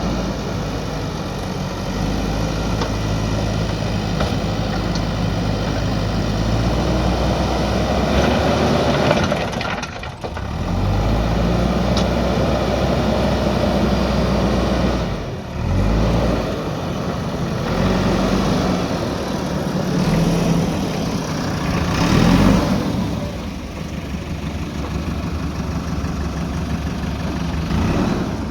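JCB backhoe loader's diesel engine running and revving up and down as the machine digs. It drops away briefly about ten seconds in and again near sixteen seconds, and swells loudest about twenty-two seconds in.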